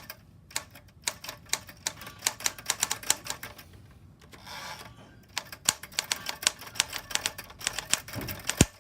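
1968 Sears Forecast 12 typewriter, a Smith-Corona-built machine, typing in quick runs of key strikes, several clacks a second. There is a brief break about four seconds in and a heavier knock near the end.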